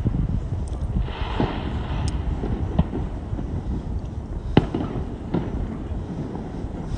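Distant fireworks going off: a handful of sharp bangs, the loudest about four and a half seconds in, over a steady low rumble of wind on the microphone.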